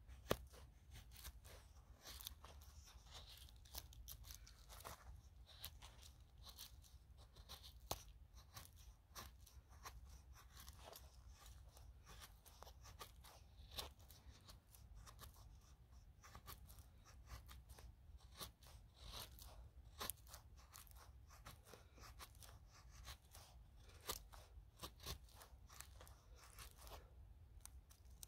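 A knife shaving thin curls off a split stick to make a feather stick: a long run of short, faint scraping strokes at an uneven pace, a few sharper than the rest.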